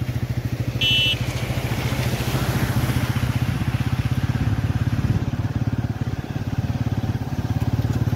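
A motor vehicle's engine running steadily, with a fast, even pulse. A short high-pitched tone sounds about a second in.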